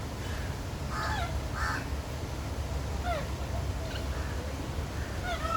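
Birds giving short calls every second or so, some dropping in pitch, over a steady low rumble.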